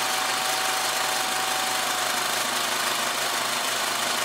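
The sound module of an RC Terex Finlay rock crusher model playing its simulated running sound with the conveyor and crusher switched on: a steady engine-and-machinery noise with one steady tone. It drops off suddenly at the very end.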